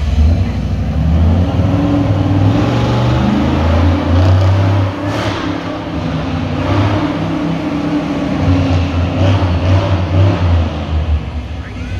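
Monster ride truck's engine running and revving as it drives over the dirt, its pitch rising and falling several times.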